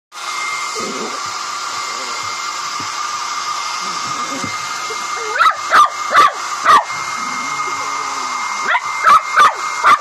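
Hair dryer running steadily with a hiss and a high whine, while a Shih Tzu barks sharply at it: four barks about halfway through and four more near the end.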